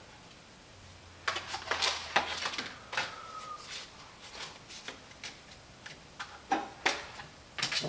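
Scattered light clicks and clatter of hands handling metal kitchen items at a stainless-steel countertop cooker, with a faint short tone a little after three seconds.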